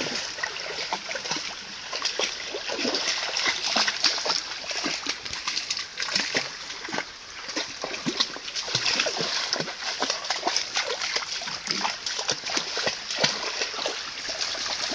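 A Cane Corso wading and pawing through a shallow, rocky creek, the water splashing irregularly under her feet.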